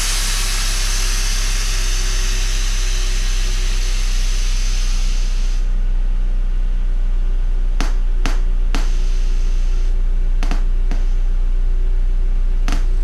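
Air Lift 3P air suspension on a Nissan Sentra letting air out: a long hiss for about six seconds as the car drops, then a series of short puffs of air from about eight seconds in as it is lowered further in steps. A steady low rumble runs underneath.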